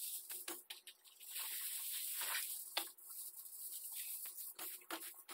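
Sheet of aluminium foil crinkling and rustling as it is handled and folded by hand, in a run of irregular sharp crackles over a hiss.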